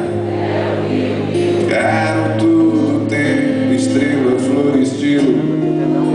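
Music: a song with a man singing over guitar.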